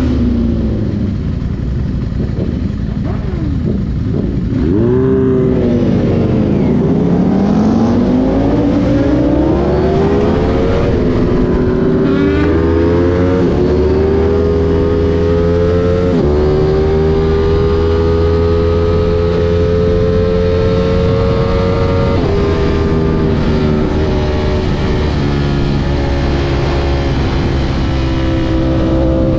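Sport motorcycle engine accelerating hard through the gears, heard from the rider's seat. Its pitch dips and climbs again early on, then rises and drops sharply at each of several upshifts before settling into a steadier pull near the end.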